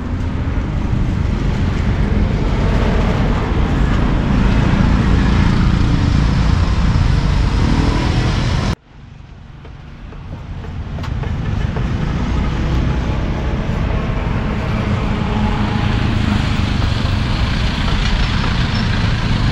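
Steady street traffic noise, strongest in the low end. About nine seconds in it drops away suddenly, then builds back up over a few seconds.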